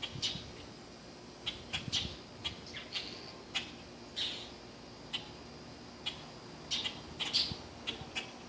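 Baby bird chirping: over a dozen short, high peeps at irregular intervals, with a couple of soft low thumps near the start and around two seconds in.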